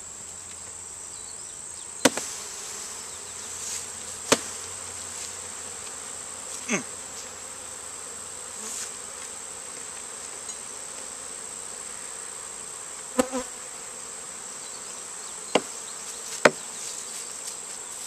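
Honeybees buzzing steadily around an open Langstroth hive, with a handful of sharp wooden knocks as hive boards and boxes are handled and set down.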